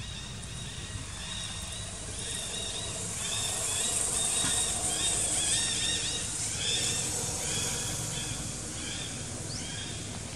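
Outdoor chorus of small wild animals: many short, repeated arching chirps over a steady high hiss that grows louder in the middle and then eases off.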